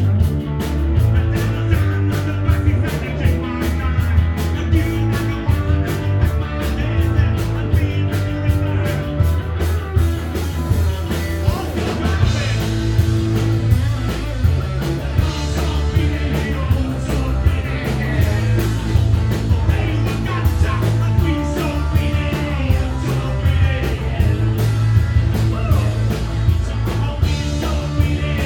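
Punk rock band playing live: electric guitar, bass and a steady drumbeat, with singing.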